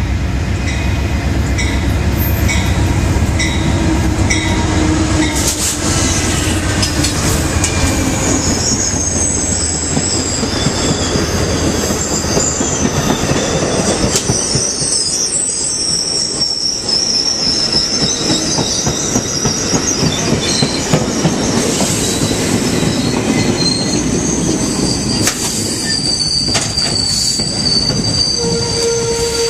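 Amtrak passenger train pulling through the station. The diesel locomotive's heavy rumble comes in the first few seconds. Then the stainless-steel passenger cars roll past close by, with a high, wavering squeal from the wheels and brakes and some clicking over the rail joints.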